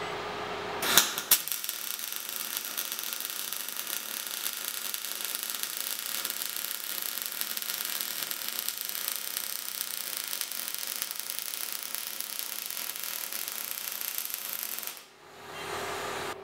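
MIG welding arc crackling steadily as a bead is run, striking with a couple of sharp pops about a second in and stopping about 15 seconds in. A steady hum from the welding setup is heard before the arc strikes and again after it stops.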